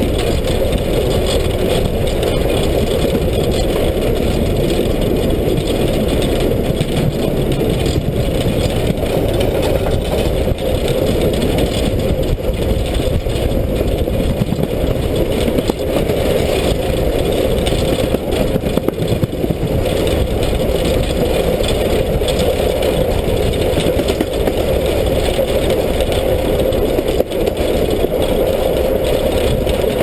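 Steam train running along the track, heard from close beside it: a steady rumble of the wheels and running gear.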